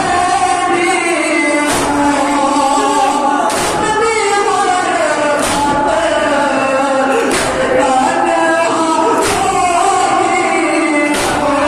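Men's voices chanting a Shia noha (Urdu lament) in chorus, with a loud unison slap of chest-beating (matam) about every two seconds keeping the beat.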